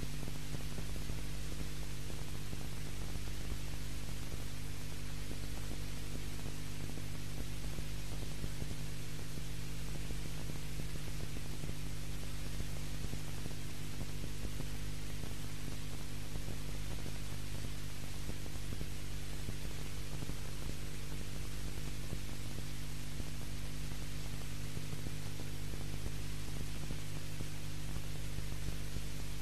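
Steady electrical hum with hiss over it, unchanging throughout, from the recording's own noise; the soundtrack holds no other sound.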